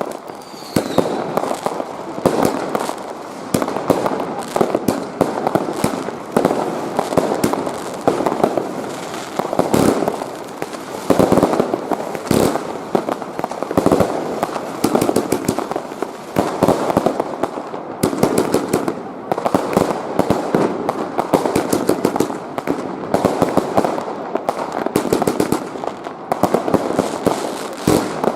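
New Year's Eve fireworks and firecrackers going off in dense, unbroken succession: many overlapping bangs and crackles with no pause.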